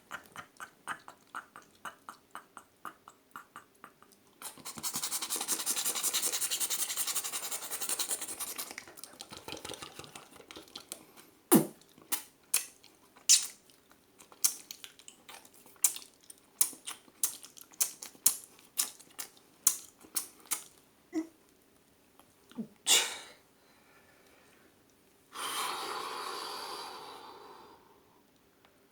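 A person making mouth sounds: a quick run of tongue clicks at about four a second, then a long blown hiss imitating wind, then scattered clicks and pops. A second, shorter blown hiss comes near the end.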